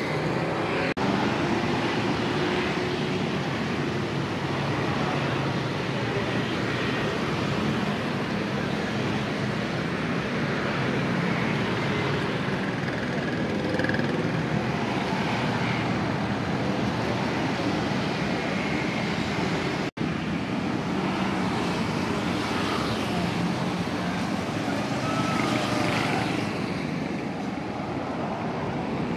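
Steady traffic noise of a busy city street, with cars and other vehicles running and passing. The sound drops out for an instant about twenty seconds in.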